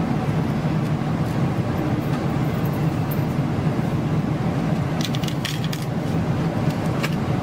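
Steady cabin drone of a Boeing 777-300ER in flight, the noise of its GE90-115B engines and the airflow. A few light clicks come about five seconds in and again near seven seconds: fingertips tapping the seat-back touchscreen.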